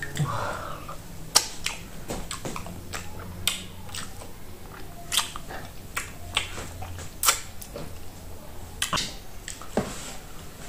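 Close-up eating sounds: irregular wet smacks and clicks of the mouth and lips while chewing food from the soup, sucking on it and licking soup from the fingers.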